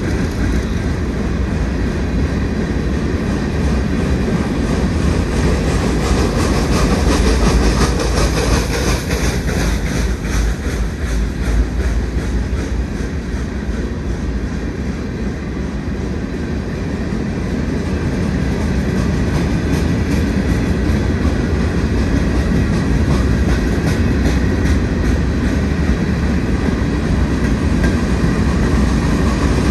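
Freight train of open hopper cars rolling past: a steady rumble of steel wheels on rail, with repeated clicking as the wheels cross rail joints.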